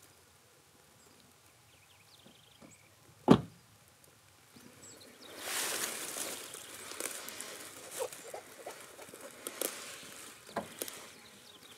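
A single sharp knock about three seconds in, then rustling and crackling with scattered clicks. A few faint high chirps come in the quiet first seconds.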